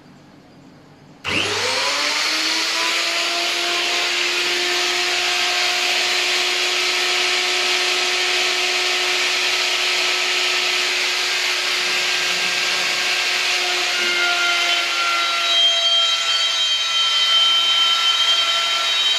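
A compact Total router serving as the spindle of a CNC router, switched on about a second in: its motor whine climbs quickly to full speed, then runs steadily at a high pitch. Around fourteen seconds in, its tone shifts as higher notes come in.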